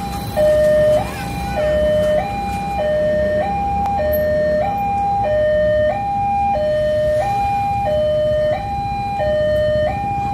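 Railway level-crossing warning alarm sounding a steady two-tone signal, switching back and forth between a higher and a lower tone, each held a little over half a second: the warning that a train is approaching the crossing.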